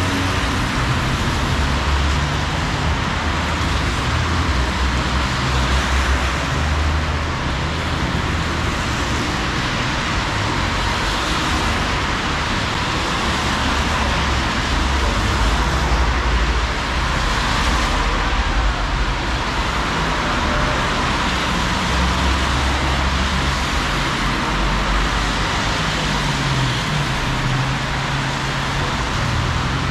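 Steady city street traffic: cars passing on a rain-wet road, with low engine rumble and tyre hiss swelling and fading as vehicles go by.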